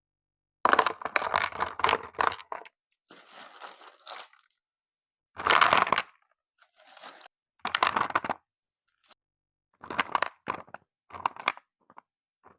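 Crunchy scraping and rustling in separate bursts with short pauses between, the longest lasting about two seconds near the start.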